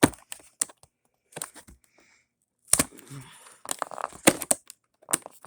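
A cardboard box being wrestled open by hand: irregular sharp cracks, scrapes and crinkling-tearing noises, with a short pause about two seconds in and the busiest handling in the second half.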